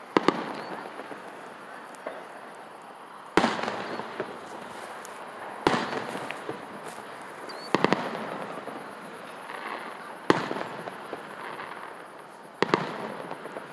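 Aerial fireworks bursting: about six sharp booms, a couple of seconds apart, each followed by a rumbling echo that dies away, with a quick cluster of two or three reports near the middle.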